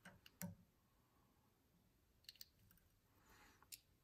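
Near silence with a few faint clicks and ticks, the loudest about half a second in, from thread and bobbin being worked around a hook held in a fly-tying vise.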